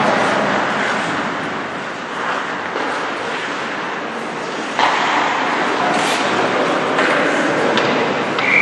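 Ice hockey play in an indoor rink: skates scraping and carving on the ice under a steady rink din, with several sharp knocks of sticks and puck in the second half. A steady high tone begins just before the end.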